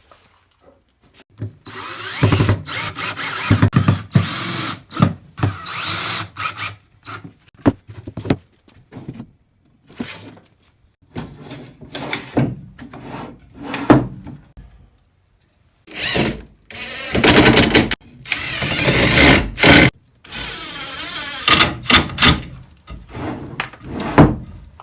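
Cordless power drill driving screws into wood, in several runs of a few seconds each with pauses and knocks of handling between them.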